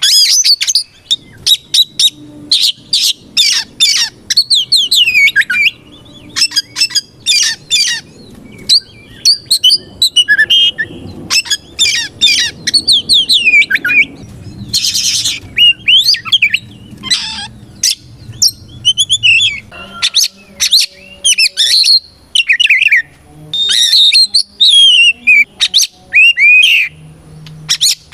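Oriental magpie-robin singing continuously, a fast varied run of loud whistled phrases, sweeping notes and harsh rasping notes with short pauses between bursts.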